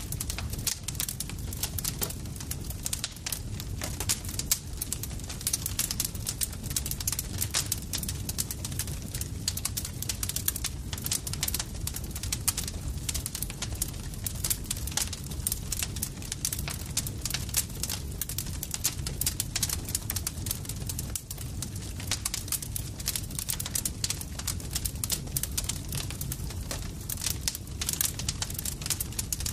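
Campfire crackling steadily, with many sharp pops and snaps each second over a low, even rumble of the burning wood.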